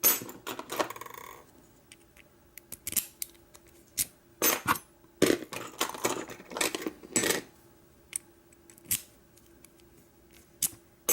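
Metal keys clinking and clicking in scattered bursts as they are picked up and tried one after another in an American 1100 padlock's keyway.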